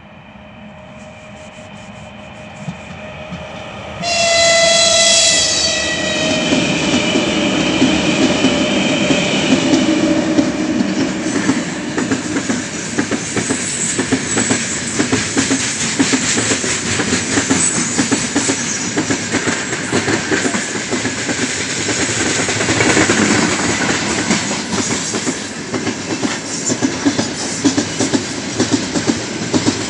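An electric locomotive's horn sounds a loud blast about four seconds in, lasting a couple of seconds. Then a heavy freight train of loaded open wagons rolls past close by, with a steady rumble and a rhythmic clickety-clack of wheels over the rail joints.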